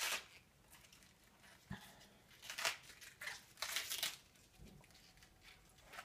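Crisp leaf of a red cabbage being peeled and torn off the head by hand, in several short, irregular crinkling bursts, the strongest between about two and a half and four seconds in.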